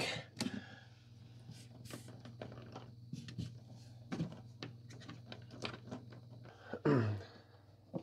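Faint scrapes, clicks and small knocks of a USB-C power cable being fed down through a hole behind a shelf and plugged into a wireless HDMI transmitter.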